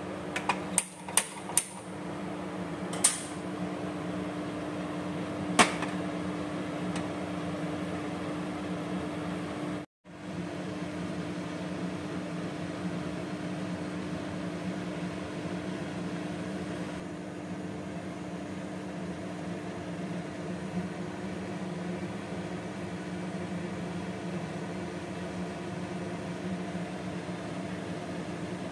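A gas stove's spark igniter clicks four times in quick succession, then twice more singly a few seconds later. After that a steady mechanical hum with a low drone runs on.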